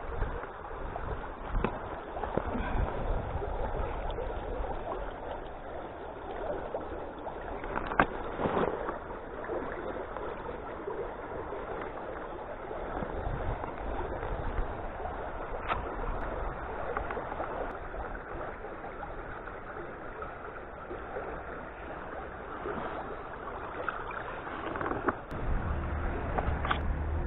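Shallow creek water running and gurgling over stones, with a few sharp knocks and splashes close by. Near the end a deeper rumble comes in.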